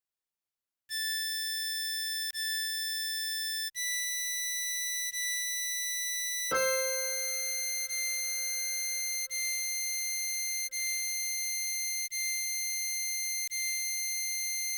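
Synthesized harmonica-style melody playing slow, long-held single notes, a new note about every second and a half, over a soft repeating low bass. It starts about a second in, after a brief silence.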